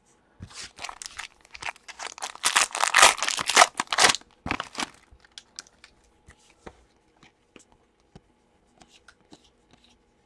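Foil wrapper of a Panini Prizm basketball card pack being torn open and crinkled, a loud crackling rip over a few seconds. After that come faint clicks of trading cards being handled.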